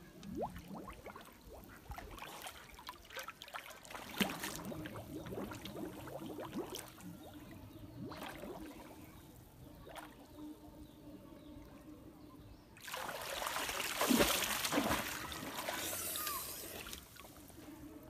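River water sloshing and trickling with scattered small splashes as a person moves about chest-deep in it. About thirteen seconds in comes a louder rush of splashing, pouring water lasting about four seconds.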